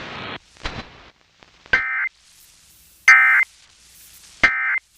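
Emergency Alert System end-of-message data bursts: three short squawks of two-tone digital data, about a second and a half apart, heard over a weak FM radio signal with faint static hiss between them. They mark the end of the severe thunderstorm warning.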